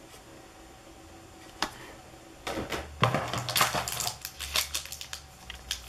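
Pokémon card booster packs and box packaging being handled. It is quiet at first, with one click about a second and a half in, then a dense run of crinkling and clicking from about halfway through.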